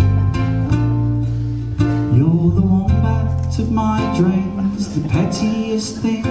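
Two ukuleles strummed in a live song, with a man singing over them from about two seconds in.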